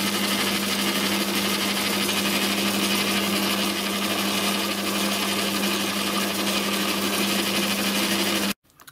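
Small homemade watchmaker's lathe running under motor power through its newly made change-gear train and leadscrew, with a steady motor hum under the whirr of the spinning gears. It is a trial run of the screw-cutting gearing, which is working okay. The sound cuts off suddenly near the end.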